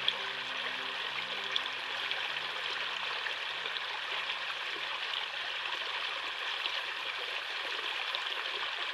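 Flowing water running with a steady, even rush. Faint background music fades out in the first few seconds, and there are two brief ticks early on.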